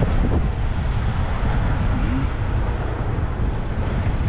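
Semi truck's diesel engine running with a steady low drone as the rig slowly backs up.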